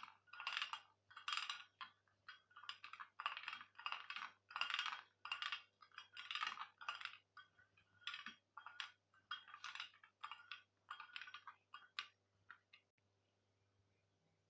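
Metal spoon stirring Milo paste in a glass bowl: rhythmic scraping and light clinking strokes, about two a second, stopping about thirteen seconds in.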